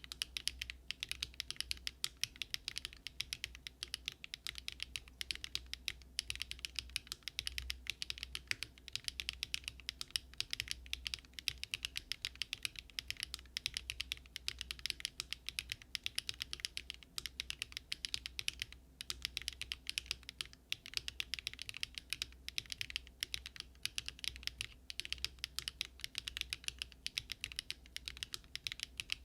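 Continuous fast typing on a Daring Run Polygon-7 custom mechanical keyboard built with Luminkey Astral switches, an aluminium plate and no foam: an unbroken run of crisp keystroke clacks, many a second.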